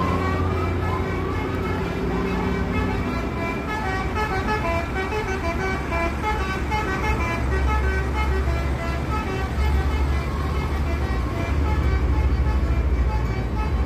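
A bus's 'telolet' multi-tone horn playing a quick tune of short notes that step up and down in pitch, over the low, steady hum of the bus's engine running.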